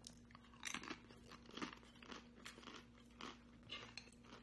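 Crunching and chewing of a crisp fried tostada shell in the mouth: faint, irregular crunches, about one every half second.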